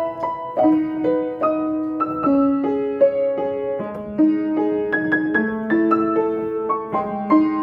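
Piano playing a gentle melody over lower sustained chord notes at a steady, unhurried pace.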